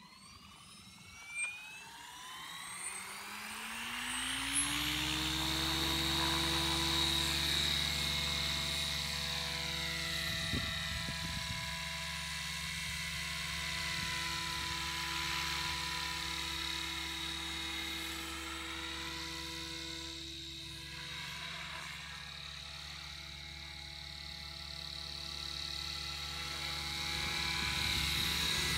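XLPower 550 electric RC helicopter spooling up, its motor whine and rotor note rising in pitch over the first few seconds, then running at a steady headspeed with a high whine as it lifts off and flies. The rotor sound fades somewhat as it moves away and grows louder again near the end as it comes close.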